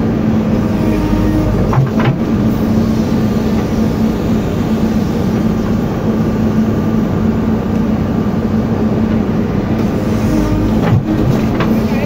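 JCB backhoe loader's diesel engine running steadily under load while the backhoe arm works, heard from inside the cab. Two short knocks come through, one about two seconds in and one near the end.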